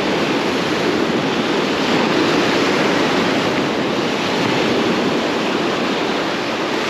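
Ocean surf washing ashore: a steady, unbroken rush of breaking-wave noise.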